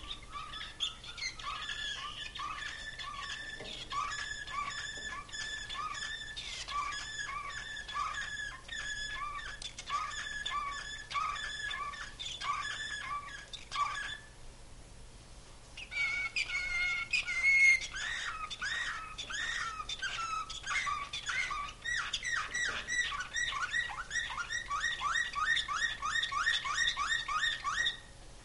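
Caged slavujar (nightingale-song) canary singing: about 14 s of phrases built from evenly repeated notes, a short pause, then a held whistled note and a faster run of repeated notes, about four or five a second.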